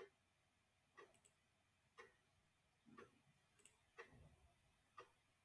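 Near silence with a faint clock ticking steadily, about one tick a second, and a faint low knock about four seconds in.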